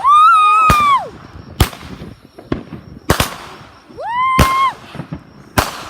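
Consumer fireworks going off: a series of about six sharp bangs, roughly a second apart, one of them fainter.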